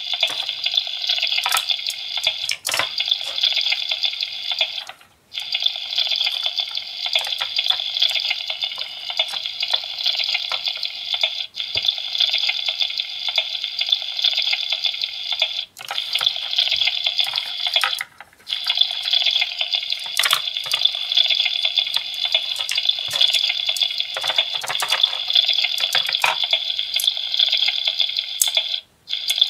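Electronic sizzling sound from the Anpanman toy lunch plate's light-up grill, a steady hiss from its small speaker set off when toy food is put on the grill. It cuts out briefly a few times and starts again. Light plastic clicks of toy food and tongs come through now and then.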